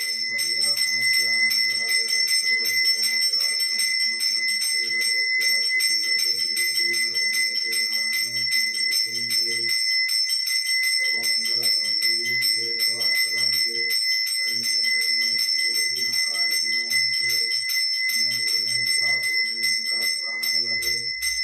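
Brass temple hand bell rung rapidly and without pause during the lamp-waving aarti, giving a steady high ringing. Under it runs a lower pulsing sound in repeated phrases, which breaks off briefly about ten seconds in and a few times after.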